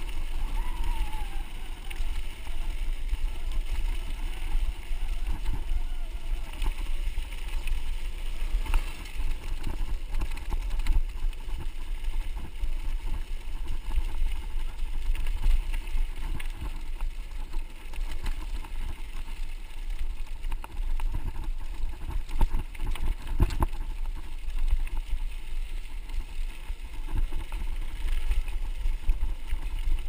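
Mountain bike riding over a dirt road, heard from a handlebar-mounted camera: a steady low rumble of the tyres on gravel and wind on the microphone, with scattered knocks and rattles as the bike goes over bumps.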